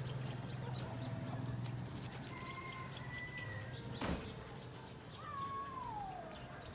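Outdoor animal ambience: birds chirping and whistling, including one long falling whistle near the end. A steady low hum fades out after about two seconds, and there is a single sharp knock about four seconds in.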